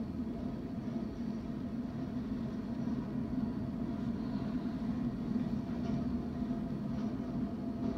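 Train rumbling steadily on the tracks: a low, even drone that grows slightly louder partway through, with a faint steady hum above it.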